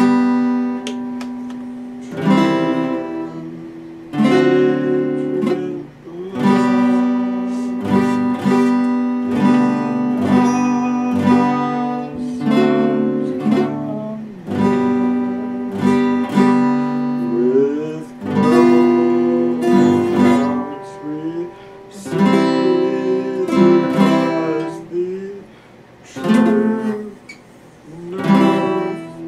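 Epiphone acoustic guitar being played solo: strummed chords left to ring, with short pauses between phrases.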